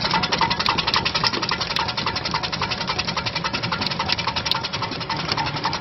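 QP-300 fruit and vegetable slicing machine running, giving a rapid, even clatter of many sharp ticks a second.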